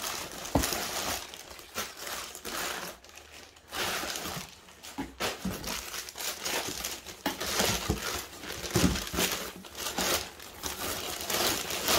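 Crumpled brown packing wrap crinkling and rustling in irregular bursts as it is pulled out of a cardboard box. A couple of dull knocks come from the box being handled.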